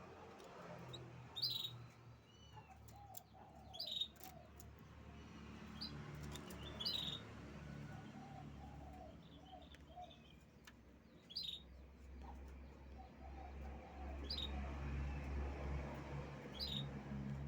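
Canary giving short, high chirps every few seconds, with quieter, lower repeated notes between them over a steady low hum.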